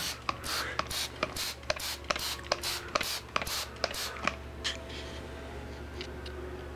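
Hand trigger spray bottle squirting degreaser: quick repeated spritzes of hiss, about three to four a second, growing fewer and fainter over the last couple of seconds.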